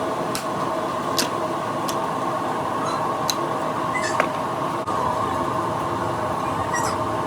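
A steady machine hum with a strong whine in it, with scattered sharp ticks and clicks over it.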